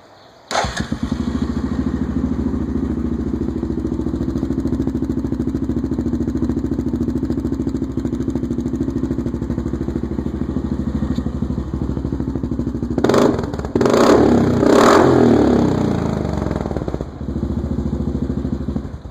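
Yamaha Grizzly 660 ATV's single-cylinder four-stroke engine, through an HMF Penline Pro Series aftermarket exhaust, starts about half a second in and idles very loud with a steady low thump, then is revved twice about two-thirds of the way through before dropping back to idle.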